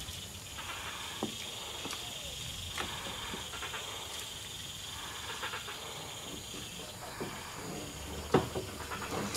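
Insects droning in a steady high pitch. The lower of the two drones stops about seven seconds in. Faint scattered clicks run through it, and there is one sharp knock about eight seconds in.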